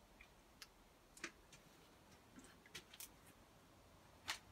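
Near silence with a few faint, scattered clicks and ticks at uneven intervals, the loudest a little before the end.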